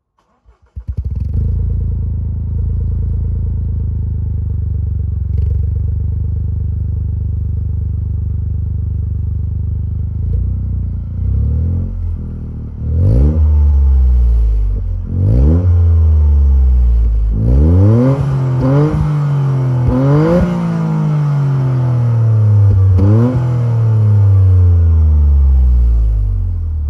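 Toyota GR Yaris turbocharged three-cylinder engine breathing through an Inoxcar full exhaust with midpipe. It starts about a second in and idles steadily. From about twelve seconds in it is revved six times, each rev rising sharply and falling slowly back to idle.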